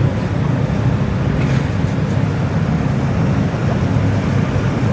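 Engines of custom cars running at low speed as they pull out, a steady low rumble.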